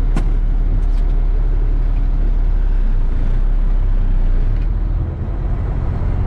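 A cement mixer truck's diesel engine running steadily with a deep, continuous low hum, a couple of faint clicks in the first second.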